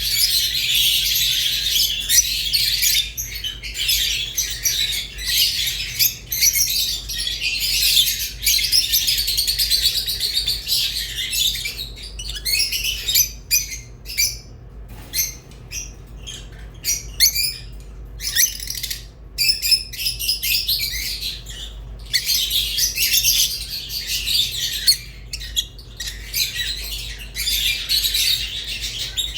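Rosy-faced and Fischer's lovebirds chirping in a dense, high-pitched chatter, which thins into separate short calls with brief gaps in the middle before growing dense again.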